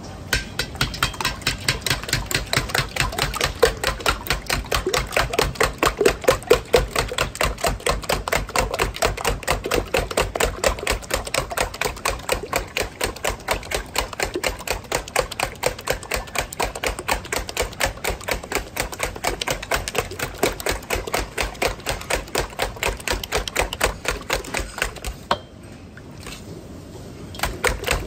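Wire whisk beating a large batch of raw eggs in a stainless steel bowl: fast, even strokes with the whisk clicking against the metal. The beating pauses for about two seconds near the end, then starts again.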